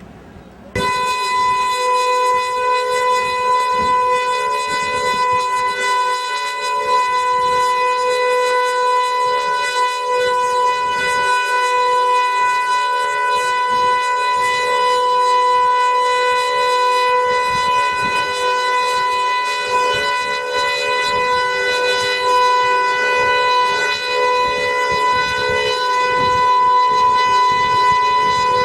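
Outdoor civil-defence warning siren sounding a loud, steady tone, held at one pitch with a weaker wavering lower tone beneath. It starts abruptly just under a second in.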